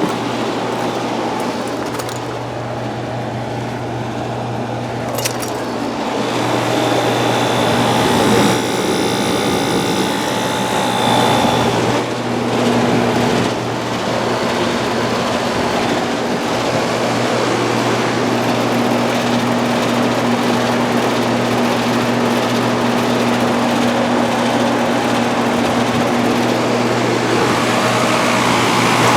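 Residential heat pump outdoor units running: a steady low compressor hum under the even rushing noise of the condenser fans.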